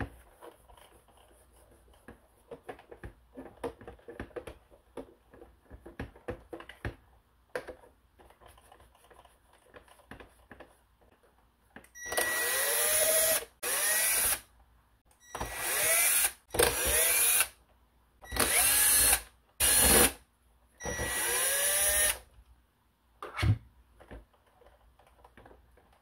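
Cordless drill/driver backing out the screws on a robot vacuum's underside in about seven short runs of a second or so, each spinning up with a rising whine. Before the drill, faint handling clicks and rubbing.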